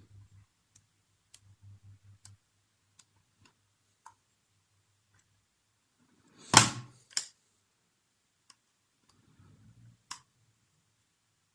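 Small screws being driven by hand into a laptop hard drive's mounting bracket: faint scattered clicks and ticks. About six and a half seconds in comes a sharp knock followed by a lighter one.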